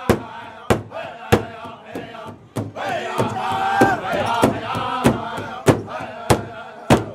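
Powwow drum group: several men singing in chorus over a big hand drum struck in an even beat, a little under two strokes a second. The drum and voices stop shortly before the end, closing the song.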